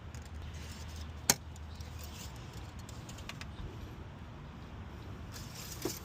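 Faint metallic handling clicks from an engine oil dipstick being pulled out, wiped and pushed back into its tube, with one sharp click about a second in, over a low steady hum.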